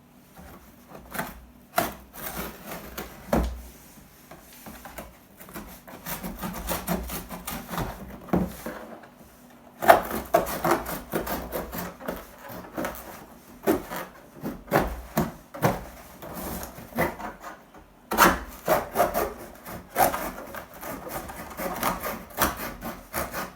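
Cardboard packaging being cut and torn open by hand: irregular scraping, rustling and knocks with sharp clicks, busiest about ten seconds in and again from about eighteen seconds.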